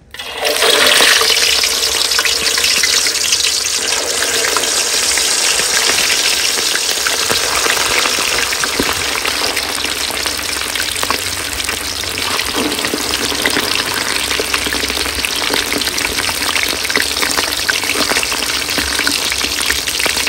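Pieces of eel deep-frying in hot oil in a wok: a sizzle that starts suddenly about half a second in, loudest at first, then settles into a steady crackling sizzle.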